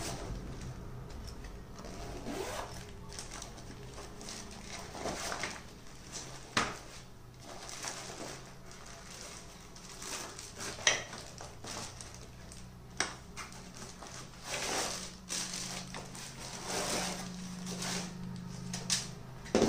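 A nylon tripod carry bag being unzipped and handled, its fabric rustling, then the plastic-wrapped tripod slid out with crinkling plastic. A few sharp clicks and knocks come through, the loudest near the end.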